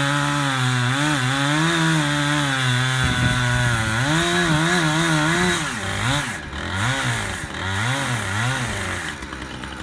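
Two-stroke chainsaw cutting cedar, its engine running high with a wavering pitch. From about four seconds in it is revved up and down in a series of quick swells, then settles lower toward idle near the end.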